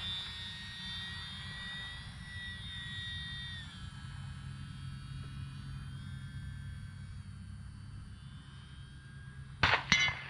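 Electric motor and propeller of a small E-flite UMX Cessna RC plane whining steadily in flight, dropping in pitch in a couple of steps, over low wind noise. Two sharp knocks in quick succession near the end.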